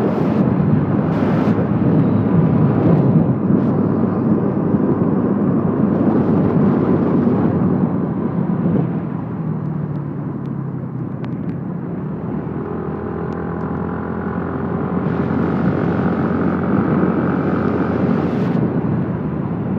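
Vehicle driving along the road: continuous engine and road noise. It eases for a few seconds about halfway, then grows louder again with a steady engine tone.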